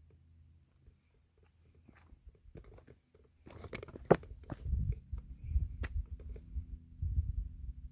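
Footsteps crunching over loose rock and gravel, faint at first and growing louder and denser about three and a half seconds in, with one sharp click just after four seconds.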